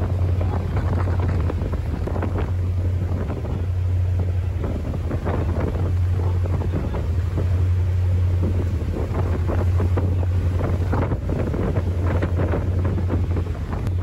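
Ferry's engine giving a steady low drone, with wind buffeting the microphone in gusts.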